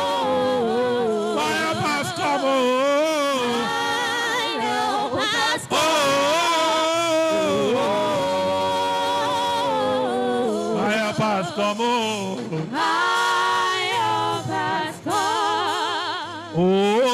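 Worship singing: a voice holds long notes with heavy vibrato and slides between pitches in a slow chant.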